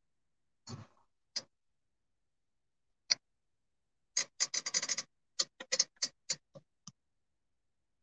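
A scatter of short sharp clicks at uneven intervals, with a quick run of them about four to five seconds in; between the clicks the sound drops out completely.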